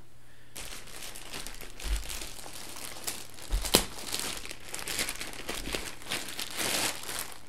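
Packaging and a drone carry bag being handled and unwrapped, crinkling and rustling, with a few soft thumps and one sharp click near the middle.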